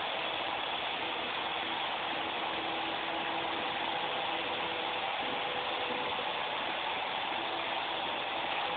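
Small electric RC helicopter in flight: a steady buzz from its motor and rotors, with a few whining tones that shift slightly in pitch.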